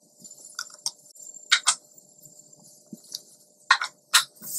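Allen key prying and scraping at a star nut inside a mountain bike fork's steerer tube: short clusters of sharp metal clicks and scrapes, the strongest about a second and a half in and again near the end.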